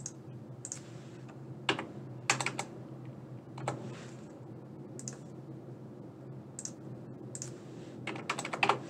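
Computer keyboard keystrokes and mouse clicks: single clicks scattered through, with two quick runs of several keys, about two seconds in and near the end, over a low steady hum.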